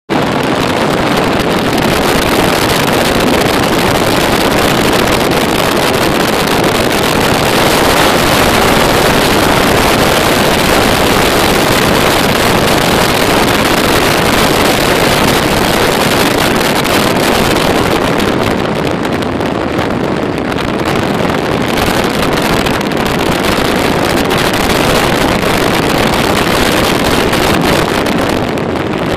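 Loud, steady wind rushing over the microphone of a camera travelling at highway speed, with engine and road noise blended underneath.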